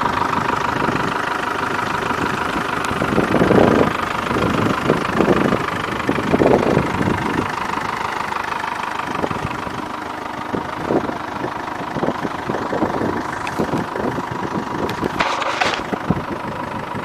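Old grey tractor's engine idling steadily. There are irregular louder bumps on the microphone in the first half, and a short noisy burst near the end.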